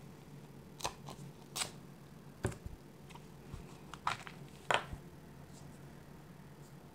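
Plastic gachapon capsule being opened by hand: its sealing tape peeled off and the hard plastic halves pried apart, giving about five short clicks and scrapes.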